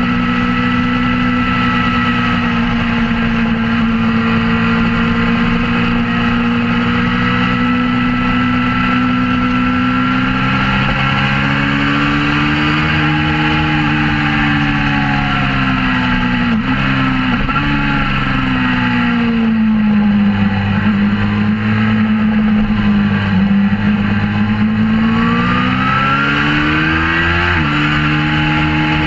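Suzuki GSX-R600 K4's 600 cc inline-four, heard from on the bike at speed on track. It holds steady revs, then rises and falls through the corners, with abrupt drops in pitch as it shifts up, the clearest near the end.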